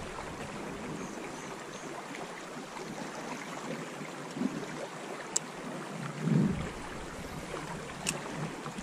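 Trout stream's running water, a steady rushing hiss, with two sharp ticks, one about halfway through and one near the end.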